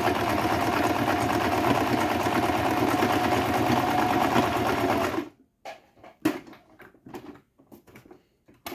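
Singer 1507 electric sewing machine running steadily at speed, sewing an overcast stitch through thick folded fabric. It stops abruptly about five seconds in, and a few light clicks follow.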